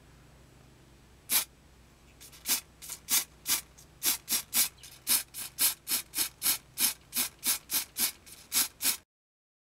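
Aerosol spray paint can hissing in many short, quick bursts, about two to three a second, as paint is sprayed onto a small plastic model car body.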